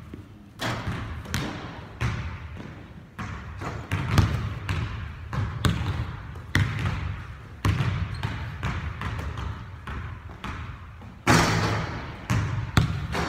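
Basketballs bouncing on a hardwood gym floor at an uneven pace, each bounce echoing through the large hall. A louder, longer impact comes near the end.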